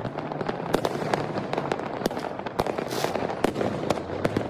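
Many fireworks going off at once across a city: a dense, irregular crackle of bangs and pops, with several sharper cracks standing out.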